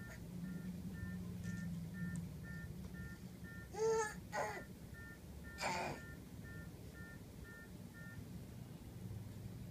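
A baby babbling in three short bursts, about four and six seconds in, over faint, steady beeping from a corded telephone handset, about two and a half beeps a second, which stops near the end.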